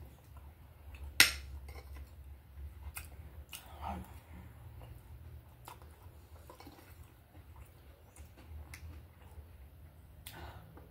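Metal fork and spoon clinking and scraping against a plate while eating, with one sharp clink about a second in and a few lighter taps after it. A steady low hum runs underneath.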